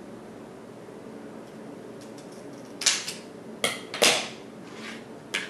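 Scissors cutting a strip of 35mm film negative: a few short, sharp snipping and handling clicks between about three and four seconds in, the loudest near four seconds, over a steady low hum.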